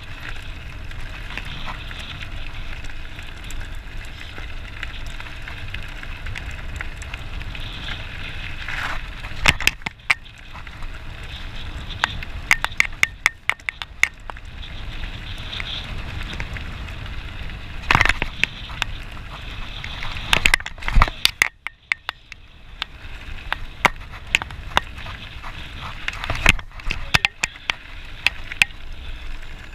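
Mountain bike rolling fast downhill on a gravel track: a steady crunch and rumble of the tyres on loose stones, with frequent sharp clicks and clatters from the bike jolting over bumps. The noise briefly drops away about two-thirds of the way in.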